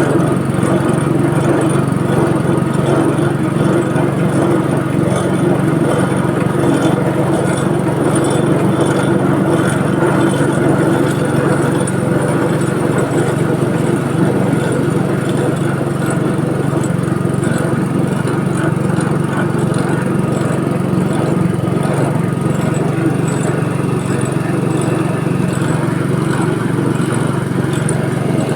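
Type A22 coconut milk press machine running steadily, a continuous loud motor hum with no breaks or knocks.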